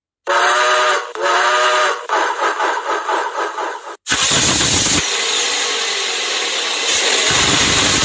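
A steam whistle sounding in two swelling blasts, then a sudden change about four seconds in to a loud, steady hissing vehicle noise with a faint, slow wavering tone and a low rumble.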